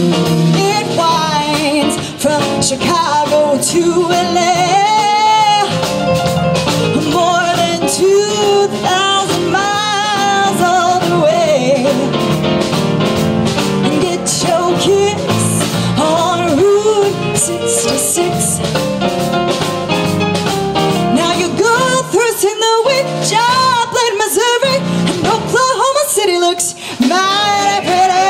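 Live band playing: drum kit, keyboard and electric guitar, with a woman singing over them.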